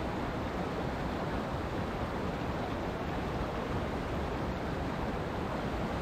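Mountain stream rushing over rocks and small cascades, a steady, unbroken water noise.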